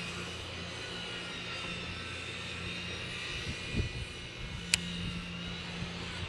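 A steady motor hum with a high whine over it, with a sharp click about three-quarters of the way through.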